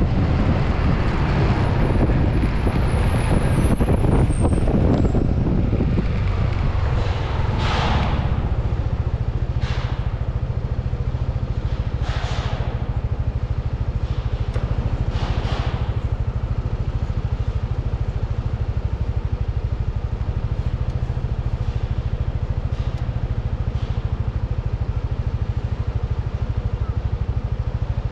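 Yamaha NMAX scooter riding with wind rushing over the helmet camera's microphone, the rush falling away about six seconds in as the scooter slows, leaving its single-cylinder engine idling steadily. A few short hisses come from the traffic around it.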